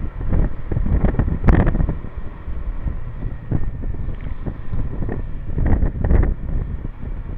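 Wind buffeting the microphone of a camera on a moving motor scooter, over the low running of the scooter and its tyres on a wet road. Louder gusts come about a second and a half in and again near six seconds.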